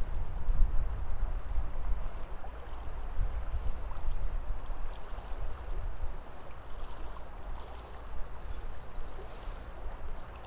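River water flowing steadily, with a low rumble on the microphone that is strongest in the first few seconds. From about seven seconds in, a small bird sings a repeated high, trilling phrase.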